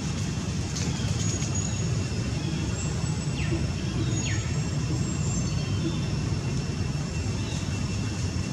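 Steady low rumbling outdoor background noise, with two brief falling high chirps about three and a half and four seconds in.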